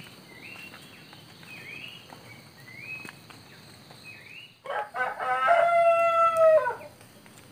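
A rooster crows once, about five seconds in: a stuttering start, then a long held note that drops away at the end, the loudest sound here. Before it, a small bird repeats a short rising call about once a second over a steady high insect drone.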